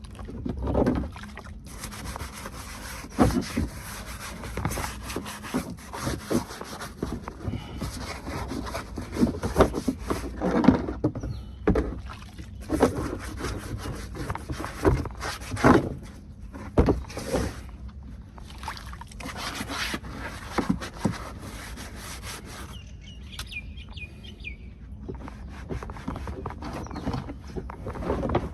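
Hand-cleaning of a car interior: irregular scrubbing and rubbing strokes with scattered knocks.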